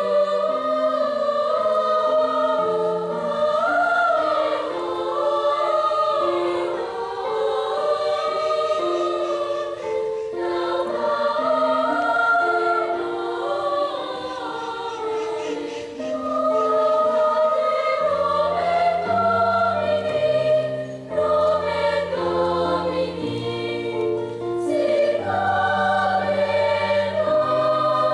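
Children's and youth choir singing in high voices, several parts moving together in harmony. A lower line of long held notes comes in about two-thirds of the way through.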